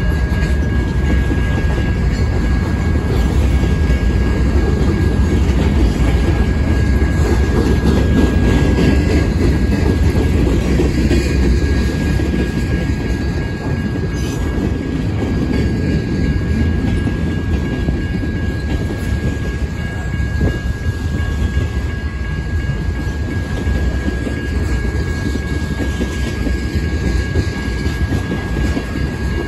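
Freight train cars rolling past close by: a continuous heavy rumble of steel wheels on rail, with a thin, steady high-pitched ring over it.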